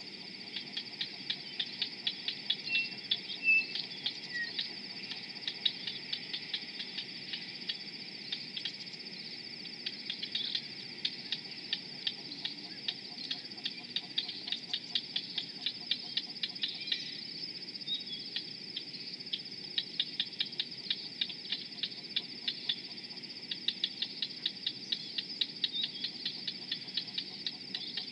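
Insects calling: a steady high-pitched drone with a rhythmic ticking of about three clicks a second that pauses now and then. A few faint bird chirps come about three seconds in.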